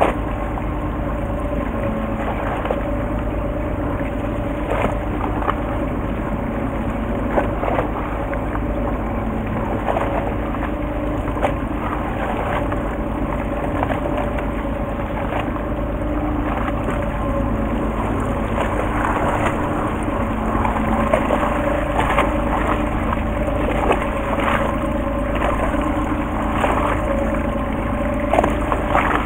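Fishing boat's engine running steadily at low revs, a constant hum with several held tones, with scattered short clicks and taps throughout.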